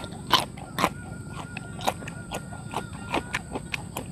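Close-up chewing of crisp raw papaya stem: irregular crunches, two or three a second, the loudest in the first second.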